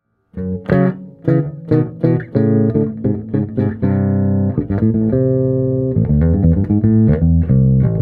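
Fender Precision Bass with a maple neck, a 1985 Made-in-Japan model, played through a Markbass amp and a Gallien-Krueger 4x10 cabinet: a bass line of plucked notes with a couple of longer held notes in the middle, then a quicker run of notes.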